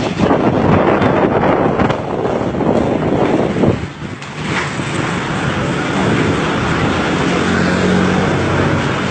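Strong gusting wind rushing and buffeting the microphone, easing briefly about four seconds in, with a low steady hum near the end.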